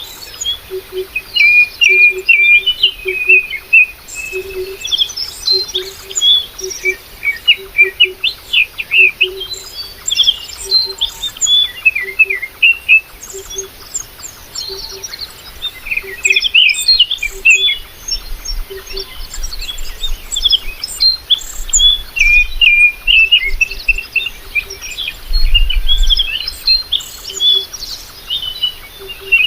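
Many small birds chirping and twittering continuously, with a low short note repeating underneath, about once or twice a second.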